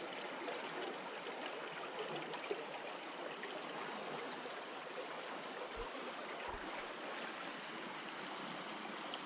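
Steady rushing of flowing rapids water, an even hiss-like wash of sound with no pitch.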